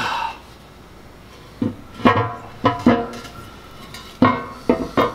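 Agco Challenger tractor's heavy steel transmission cover plate clanking against the case studs as it is worked into place: about seven sharp metallic knocks, each with a short ringing tail, starting a second and a half in.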